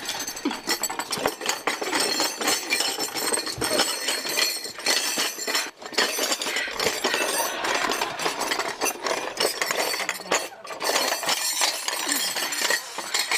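Cups, saucers and a metal teapot on a serving tray clinking and clattering continuously as the tray is jostled.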